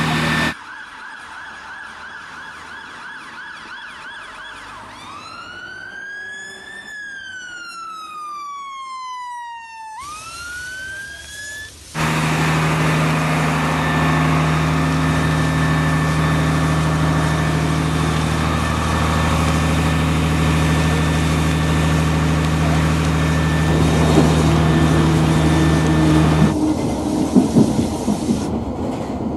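Emergency-vehicle siren wailing in slow rising and falling sweeps, followed by a loud steady low engine drone. Near the end a train rattles past.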